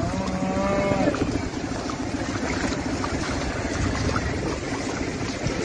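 Cyclone wind buffeting a phone microphone in heavy rain, a steady rumbling rush. About a second in, a long drawn-out call ends.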